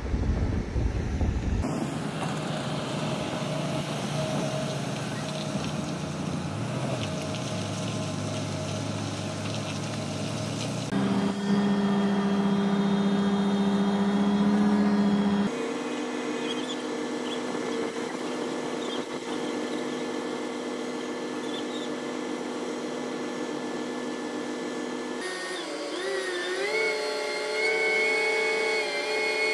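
Diesel engine and hydraulic drive of a Liebherr LTM 11200-9.1 mobile crane running at steady revs, the pitch jumping to a new level several times. About eleven seconds in a deeper, louder drone runs for several seconds while the telescopic boom is extended. Near the end the pitch wavers up and down.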